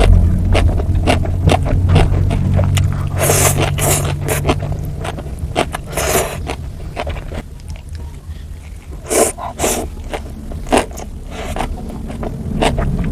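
Close-miked eating sounds of a person biting and chewing noodles: a dense run of wet clicks and smacks, with several louder bites. A low hum sits underneath and fades out about halfway through.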